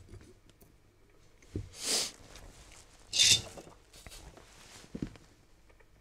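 Handling sounds on a wooden workbench as a cable is clamped into the crocodile clip of a helping-hands stand: a knock, then two short scraping rustles about a second apart, the second the loudest, and a small click near the end.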